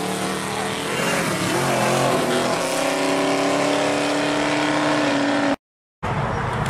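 Classic muscle car engine driving past and away under throttle, its pitch rising and falling and then holding steady. The sound cuts out abruptly for a moment near the end, and another car's engine and road noise follow.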